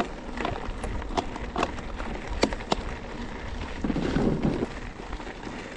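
Mountain bike rolling along a stony dirt track: tyres crunching over loose gravel, with scattered sharp clicks and knocks over a low steady rumble.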